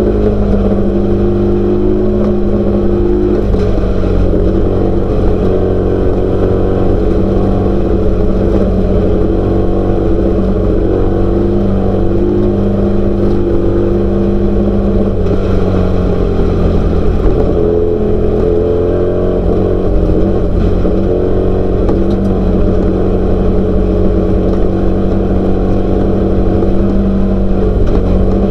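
Class 12 off-road race car's engine running hard and steady, its pitch wavering and dipping briefly about halfway through before settling again.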